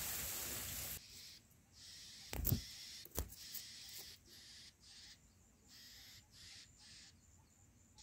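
A rustling hiss, then two soft thumps, then a string of short, high-pitched chirps every half second or so: nestling songbirds begging to be fed in a grass nest.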